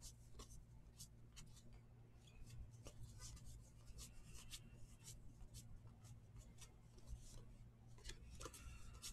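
Faint ticks and rubs of cardboard baseball cards being thumbed one by one off a stack and slid across each other, over a low steady hum.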